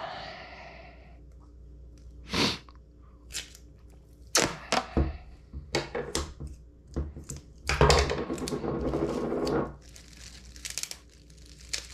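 Tape being pulled off its roll in short rips and one long rasping pull of about two seconds near the end, with sharp clicks and knocks of the tape roll and scissors being handled on a wooden table.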